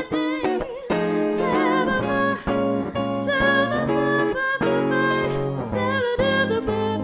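Swing jazz played by acoustic guitar and piano, a steady run of plucked notes and chords.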